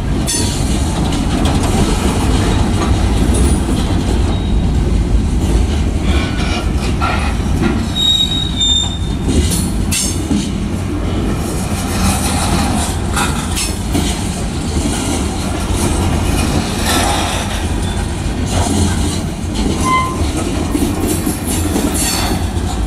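Covered hopper cars of a freight train rolling past close by: a steady low rumble with the clatter of steel wheels over the rail joints. Brief high wheel squeals come about eight seconds in and again near twenty seconds.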